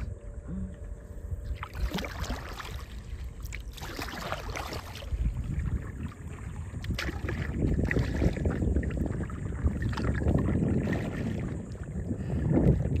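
Kayak paddling: water splashing from the paddle strokes, with wind buffeting the microphone as a low rumble that grows stronger from about five seconds in.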